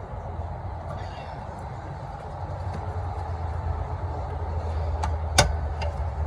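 Steady low rumble with a few light metallic clicks, then one sharp snap about five seconds in, as a brake shoe return spring is levered into place with a spring tool.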